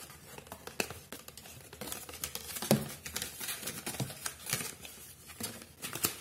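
Cardboard box and paper packaging rustling, scraping and clicking as a cup-holder car charger is pulled out of it by hand.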